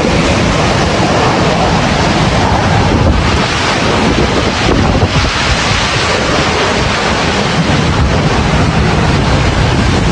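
Loud, steady rush of tornado-force wind buffeting the microphone.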